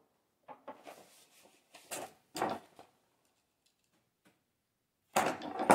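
Hands handling small helicopter parts and tools: a string of light clicks and rustles, then a louder clatter near the end.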